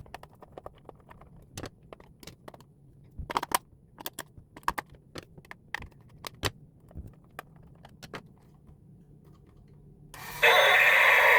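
Scattered sharp plastic clicks and taps from a toy or its packaging being handled. Near the end a loud, steady rushing noise starts suddenly.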